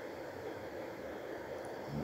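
Faint steady sizzling hiss of mutton chops heating in a little oil on a hot iron tawa.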